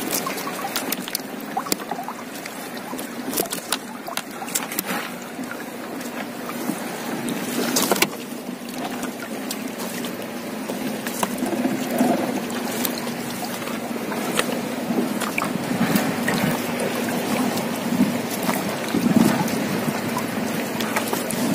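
Wet fishing net being hauled by hand into a small boat: water splashing and dripping, with many sharp knocks of the net and its floats against the hull, one louder knock about eight seconds in, over a steady low hum.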